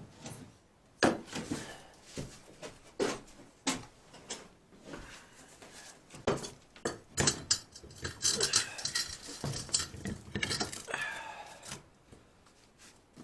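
Metal tools and parts clinking and knocking while an ATV wheel hub is reassembled, in separate sharp knocks with a denser run of quick rattling clicks about two-thirds of the way through.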